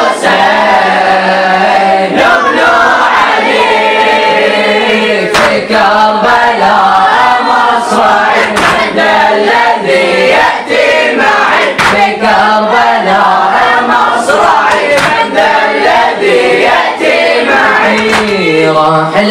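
A group of boys chanting a Shia mourning latmiya refrain together, with the sharp slaps of hands striking chests (latm) heard through the singing.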